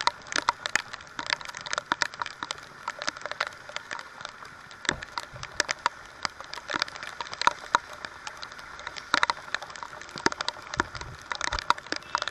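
Heavy rain, with raindrops striking the camera up close: an irregular patter of sharp taps over a steady hiss.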